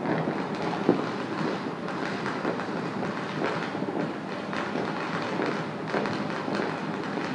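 Many distant fireworks and firecrackers going off all across a city at once, merging into a continuous crackling rumble dotted with small pops, with one louder bang about a second in.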